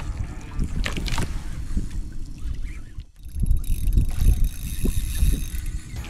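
Low rumbling wind and water noise on a small fishing boat at sea, with a few sharp knocks about a second in.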